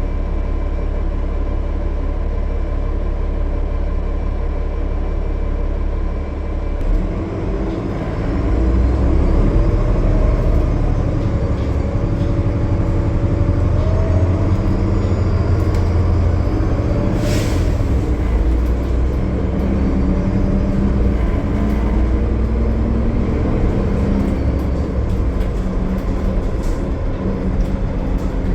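A transit bus's Cummins ISL9 diesel engine runs at highway speed. About a quarter of the way in, the note changes and grows louder, with a whine that rises in pitch, as if under throttle. About two-thirds through there is one sharp sound, and then the engine settles back into steady running.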